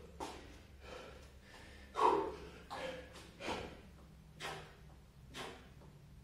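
A man breathing hard from exertion during burpees with push-ups: short, forceful exhales about once a second, the loudest about two seconds in.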